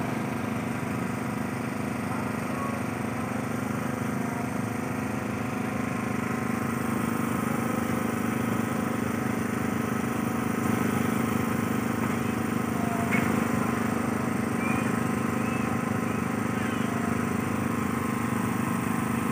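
A small engine running steadily at a constant speed, a continuous even hum with no revving.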